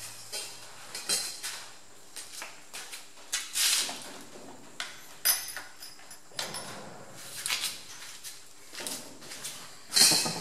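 Irregular metallic clinks, clatters and rattles of hand tools and small steel parts being handled on a workbench, with the loudest clatter near the end. A faint low hum stops about a second in.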